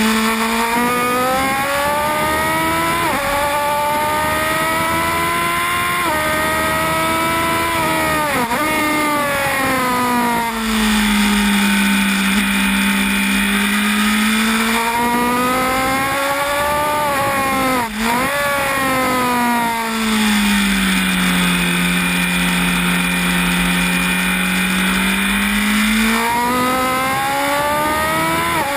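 Honda CB1000R's inline-four engine at full race pace, heard onboard with wind rush. Revs climb through the gears, drop sharply twice, and twice sag and slowly build again while the bike is leaned over through long bends.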